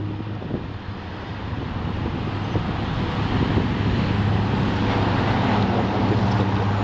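Cat 345B L hydraulic excavator's diesel engine running under digging load, a steady low drone that grows louder over the first few seconds, with a few knocks.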